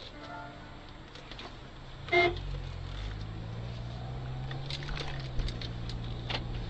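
A short car horn toot about two seconds in, over the low hum of a car engine that rises gently and then eases off, heard from inside the car.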